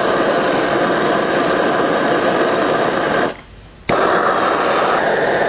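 Handheld gas torch flame hissing steadily as it heats a snowmobile primary clutch's spider to soften the thread locker. It stops briefly just after three seconds and comes back with a sharp click.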